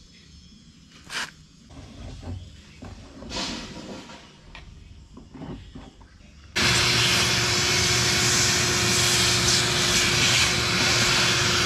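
Shop vacuum switched on a little over halfway through and running steadily: a loud hiss over a steady hum, with the nozzle in the fuel tank's pump opening. Before it, faint clicks and scrapes of a screwdriver working at the opening.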